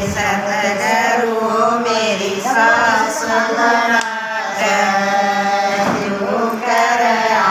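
Women singing a bhajan, a Hindu devotional song, together. The melody moves in long held notes, broken by short pauses between phrases.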